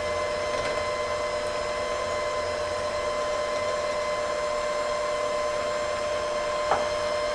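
Electric hand mixer running at a steady speed, its beaters whisking egg yolks in a glass bowl, a steady motor whine with a few held tones. A brief knock near the end.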